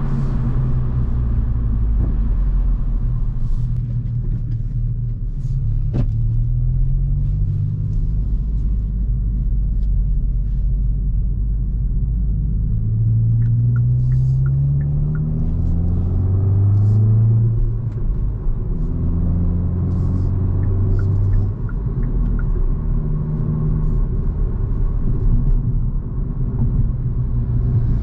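Hyundai i20 N's turbocharged 1.6-litre four-cylinder heard from inside the cabin, pulling through the gears: its note climbs, drops back at each shift and climbs again, over a steady low rumble of road noise.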